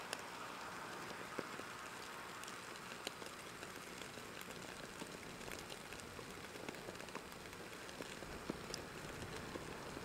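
Small wood fire crackling in a stainless steel fire pit: faint, irregular pops and snaps over a steady soft hiss.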